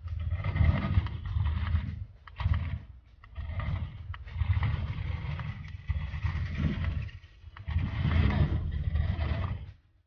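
Small electric gear motors of a joystick-controlled robot car whirring in about five stop-start bursts as the vehicle is driven back and forth and steered.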